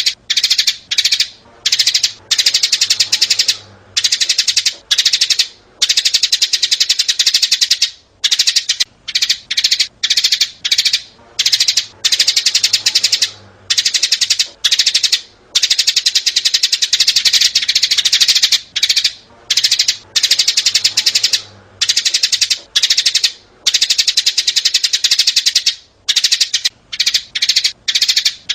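Sparrows, adults and young, chirping: rapid high-pitched chirps in dense runs broken by brief pauses.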